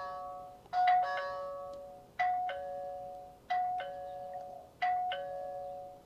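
Electronic doorbell chime playing a two-note ding-dong, high note then low, over and over about every second and a half, five times. The faulty old doorbell is stuck ringing and won't stop.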